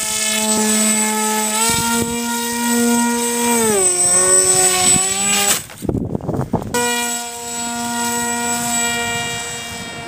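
Brushless electric motor and propeller of a small RC foam plane running with a steady whine. Its pitch steps up about two seconds in and back down near four seconds as the throttle changes. It breaks off for about a second of rough rushing noise just past halfway, then runs steady again.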